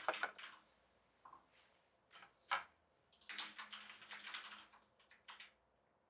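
Faint keyboard taps and clicks on a tablet's keyboard cover: a few near the start, one alone about two and a half seconds in, and a short run of taps a little past three seconds.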